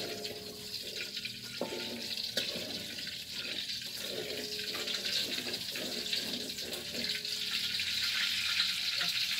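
Cooking oil heating in a pan on a gas stove, sizzling with a steady hiss that grows gradually louder as it comes up to temperature.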